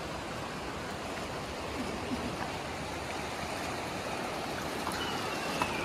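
Steady rush of flowing river water, a continuous even noise.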